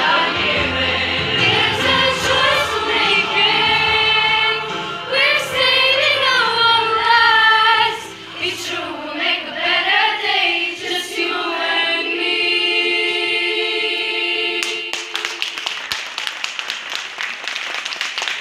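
Girls' school choir singing in several voices, closing on a long held chord; about fifteen seconds in the song ends and the audience breaks into applause.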